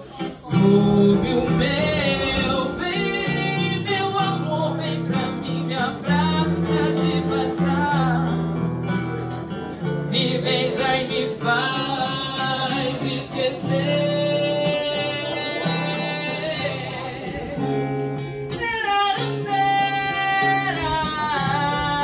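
A woman singing a melody with acoustic guitar accompaniment, performed live.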